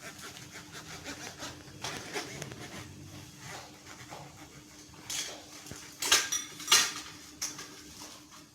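Equipment being handled and set down: rubbing and rustling with scattered light clicks, then two loud sharp knocks about six seconds in and again just under a second later. A faint low hum runs underneath.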